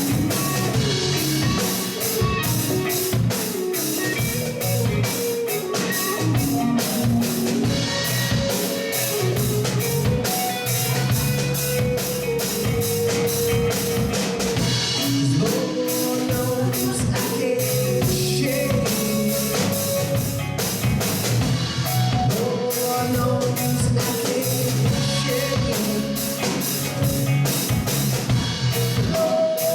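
Live rock band playing: an electric guitar lead line over drum kit and bass guitar, with a steady beat.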